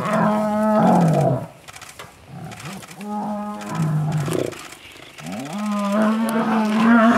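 Two male lions fighting, growling and snarling in three bouts of a second or two each, with short quieter gaps between.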